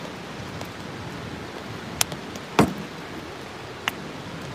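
Steady hiss of a charcoal fire flaring in a shichirin grill, with three sharp clicks about two, two and a half and four seconds in, the middle one loudest.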